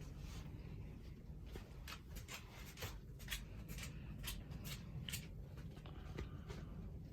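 A run of light, irregular clicks and rustles over a faint low rumble, like something being handled.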